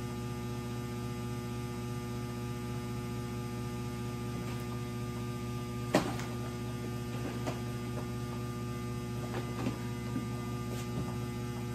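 Steady electrical hum, with one sharp tap about halfway through and a few lighter taps after it: an electrostatic powder coating gun being rapped to keep the metallic powder flowing.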